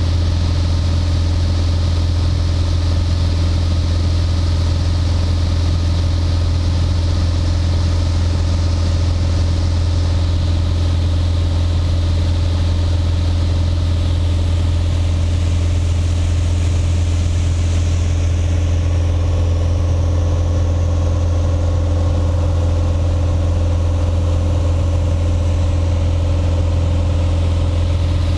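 Single-engine light aircraft's piston engine and propeller running steadily in flight, heard inside the cockpit: a loud, low, even hum with a few fixed tones above it.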